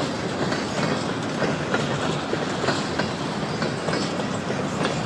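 Freight train cars rolling past, a steady rumble with the steel wheels clacking irregularly over the rail joints.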